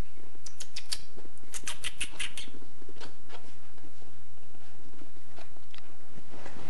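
A puppy's claws scratching and pawing at a fleece blanket: a quick run of scratches in the first couple of seconds, then a few single scratches.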